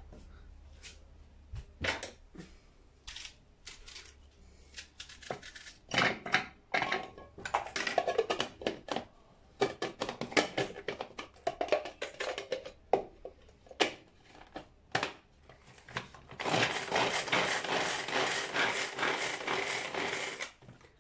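Plastic pull-cord manual food chopper chopping onion and garlic: clicks and rattles as the bowl and lid are handled, then near the end about four seconds of continuous whirring and chopping as the cord is pulled.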